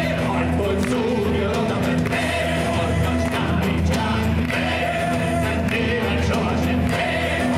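Three men singing a song into microphones over amplified backing music, the sound carried through a PA system.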